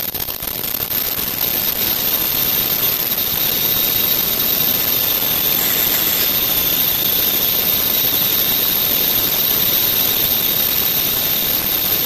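Non-woven filter bag making machine running steadily: a continuous mechanical hum and hiss with a constant high tone over it.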